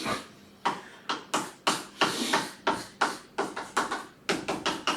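Quick back-and-forth strokes of a writing tool shading in a region of a Venn diagram, about three scratchy strokes a second, each swelling and fading.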